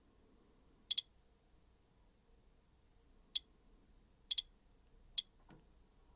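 Sharp, light clicks from handling a DJI Osmo Action 5 Pro action camera as its touchscreen is tapped: a quick pair about a second in, a single click, another quick pair and a single click, then a fainter, duller tick near the end.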